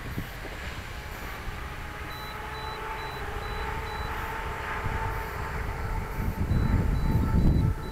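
Electric motor and propeller of a small depron J-Bug RC plane whining steadily as it flies low past and comes down on the tarmac, with wind buffeting the microphone, heaviest near the end.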